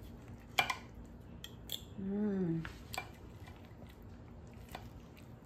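Knife and fork clinking and scraping against a ceramic plate while cutting cooked chicken: a handful of sharp clicks, the loudest about half a second in. About two seconds in, a short low voiced hum rises and falls.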